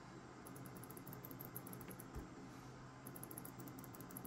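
Faint clicking of loose Omron microswitches pressed by hand, tested one by one to pick out a soft-feeling switch for the mouse's left button.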